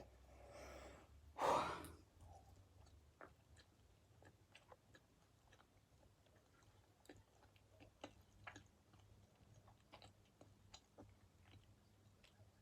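A person chewing pizza with faint, scattered mouth clicks, and a loud breath out, like a sigh, about a second and a half in.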